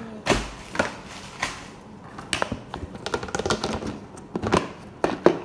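Irregular clicks and taps of plastic fidget toys being handled.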